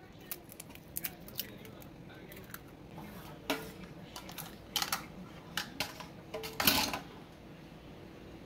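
Scattered light clicks and taps against a stainless steel mixing bowl as an egg is cracked into it and milk is added. The loudest, a short clatter, comes about two-thirds of the way in.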